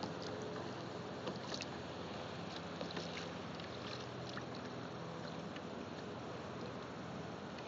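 Steady wash of wind and sea around a kayak, with small water splashes and drips ticking against the hull.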